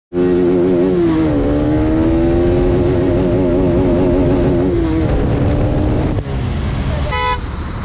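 Motorcycle engine held at high revs with a slightly wavering pitch, dropping off about five seconds in. A short high tone cuts in briefly near the end.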